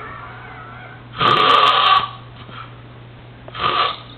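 A person snoring in their sleep: one long snore about a second in and a shorter one near the end, over a faint steady low hum.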